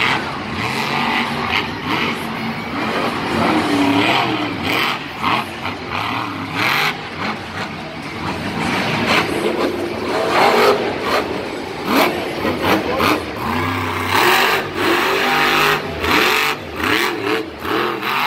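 Monster truck engines, supercharged methanol V8s, revving hard, the pitch repeatedly rising and falling as the trucks accelerate and jump.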